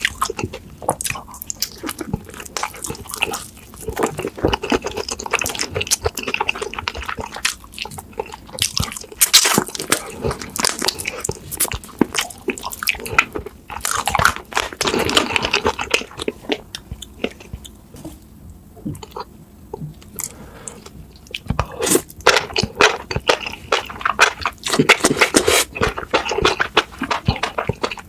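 Close-miked eating of ghost pepper noodles: wet chewing and biting, with many small irregular clicks and crunches.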